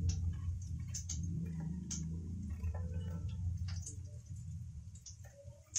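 Small kitchen knife peeling the skin off an apple: a few irregular, sharp little clicks and scrapes of the blade. Under them runs a low steady hum that fades near the end.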